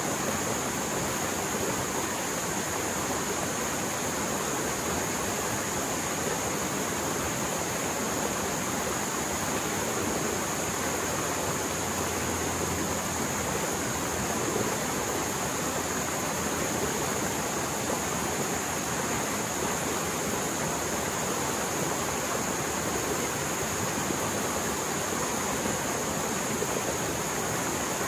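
Mountain stream in spate after heavy rain, its fast-flowing water roaring in a steady, unbroken rush.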